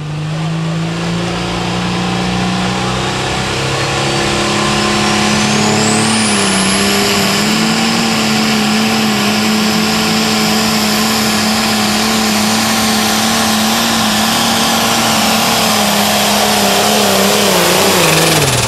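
International super stock pulling tractor's turbocharged diesel engine running at full throttle under load as it pulls the sled. A high turbo whine climbs over the first several seconds and then holds, and the engine note falls away near the end as the throttle comes off.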